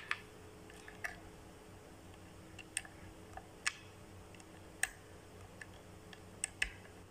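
Faint, irregular small ticks and clicks as the slackened sixth (low E) string of an electric guitar is handled and worked free during restringing.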